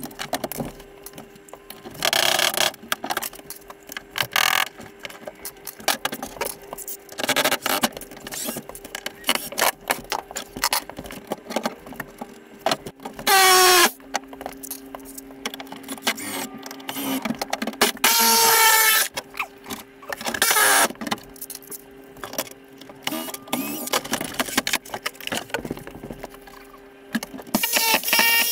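Hand demolition work on a trailer's wooden bunk: knocks, taps and clatter as trim is pried loose, and a cordless power tool run in two short, loud bursts, one about fourteen seconds in and a longer one a few seconds later. A steady low hum runs underneath.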